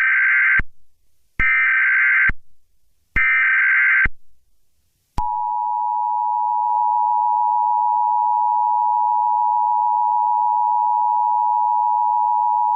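Emergency Alert System SAME header: three short bursts of data screech, each just under a second with a short gap between. About five seconds in, the steady two-tone EAS attention signal starts and holds.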